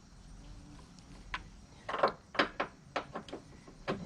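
A ratchet used as a hammer, striking a loosened engine mount to knock it free: one light click, then about a second in a quick, uneven run of six or so sharp metal knocks, and one more knock near the end.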